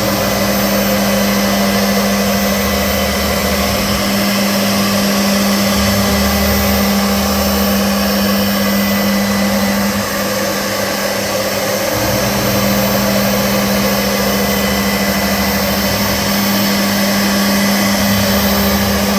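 CNC milling machine running: a steady spindle hum with a continuous cutting noise over it, and a lower drone that comes and goes every few seconds.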